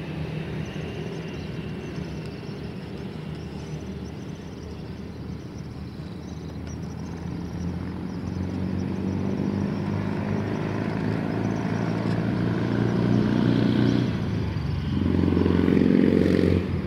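Road traffic: motor vehicle engines running, swelling from about halfway, loudest near the end, then dropping off suddenly.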